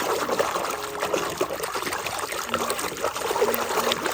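Water running and trickling over a mud-covered toy as it is rinsed, a steady splashy patter with many small ticks.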